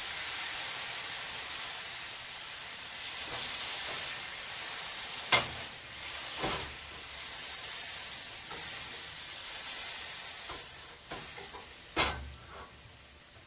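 Tap water boiling off in a very hot non-stick frying pan: a steady high sizzle, with two sharp pops, about five seconds in and again near the end, and fading as the puddle evaporates. There is too much water for it to skitter on a steam cushion, so it simply boils away.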